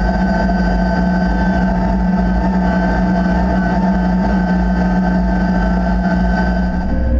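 John Deere combine running, a loud steady drone of engine and machinery with a constant hum and whine; the sound shifts abruptly just before the end.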